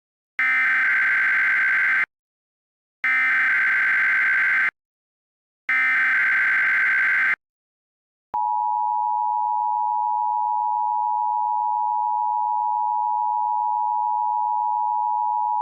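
Emergency Alert System SAME header from a DASDEC encoder: three short bursts of buzzing digital data tones, each under two seconds, about a second apart. About a second after the last burst, the EAS two-tone attention signal starts and holds steady.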